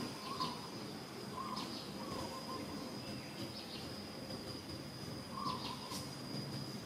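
Steady high-pitched insect drone, with short chirps every second or so.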